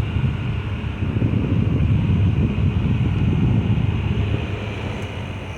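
Midea 5000 BTU window air conditioner running on high fan, its airflow buffeting the microphone as a fluctuating low rumble that eases off slightly near the end.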